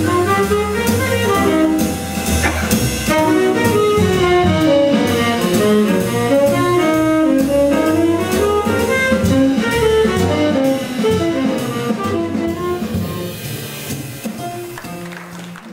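Jazz tenor saxophone playing a running solo line over walking double bass and drum kit with cymbals. The music fades out over the last few seconds.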